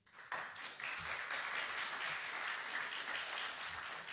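Church congregation applauding: a dense patter of many hands clapping that starts a moment in and begins to fade near the end.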